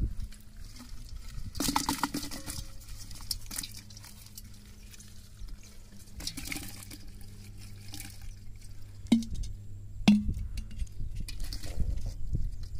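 Water splashing and sloshing as water and fish are poured from a clay pot into another pot, in several short bursts, with dripping between. Two sharp knocks about a second apart near the end.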